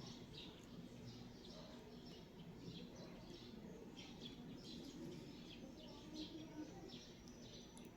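Faint bird chirping: many short, high chirps in quick irregular succession over a low steady background hum.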